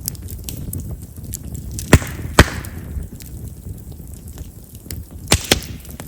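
Chestnut-wood campfire crackling steadily, with two loud sharp pops about two seconds in, the second followed by a short hiss, and two more pops near the end. Chestnut firewood is known for popping because of its large wood vessels.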